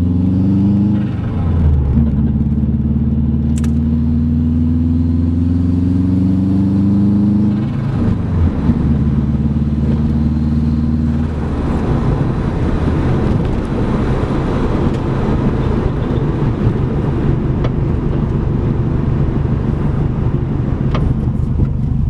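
A 2005 Subaru WRX's turbocharged flat-four engine accelerates through the gears. The engine note climbs and drops at each upshift, about a second in, near eight seconds and near eleven seconds. It then settles into steady cruising with road noise. The engine has a misfire that the owner believes is a failing coil pack.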